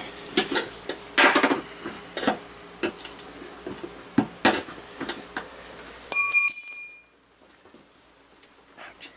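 Scattered knocks and metallic clinks of hand tools and parts being handled during bumper work, then about six seconds in a single bright, bell-like ding that rings for under a second, after which it goes much quieter.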